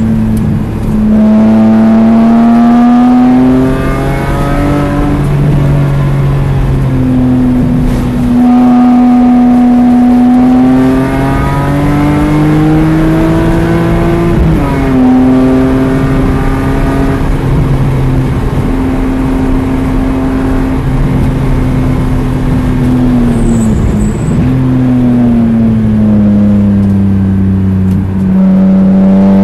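BMW E46 M3's straight-six engine from inside the cabin on track, rising in pitch as the car accelerates and dropping back sharply at gear changes and when slowing for corners.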